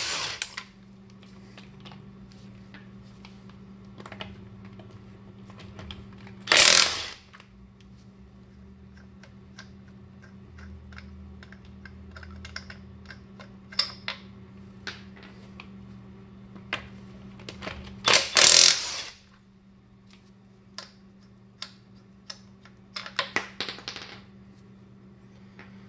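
DeWalt impact wrench hammering lug nuts loose in short bursts of about a second: one at the very start, one about 7 seconds in, one around 18 seconds, and a quick cluster near the end. Light clicks and clinks fall between the bursts, over a steady low hum.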